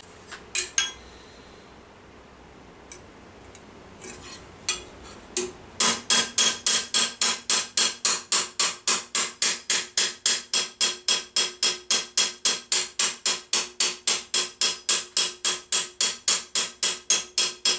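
Hammer striking sheet metal held over a ball stake, with a ringing tone: a few scattered taps, then from about six seconds in a steady run of quick blows, about three or four a second. The blows go around a rivet hole, drawing the metal in to shrink the hole closed.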